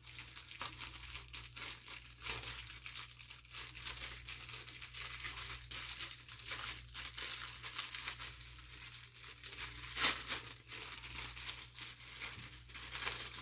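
Crackling, crinkling and scraping of plastic pry cards working under a glued MacBook Air battery, the strong adhesive tearing loose bit by bit, with a dense run of small clicks and a louder crackle about ten seconds in.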